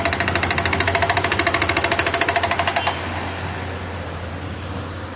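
Hydraulic breaker on a JCB 3DX backhoe loader hammering in a rapid, even rhythm, stopping about three seconds in, with the machine's diesel engine running steadily throughout.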